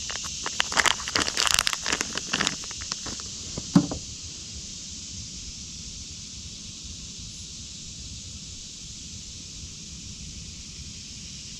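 Rustling, crinkling and clicking handling noises for about four seconds, ending with a single knock, then a steady high hiss.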